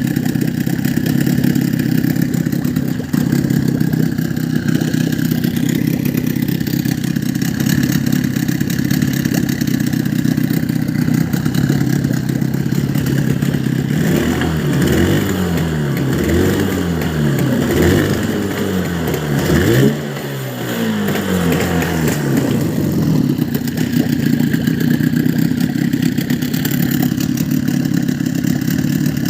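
HDX outboard motor running at a steady idle; about halfway through the throttle is opened and closed several times, the revs rising and falling, before it settles back to an even idle.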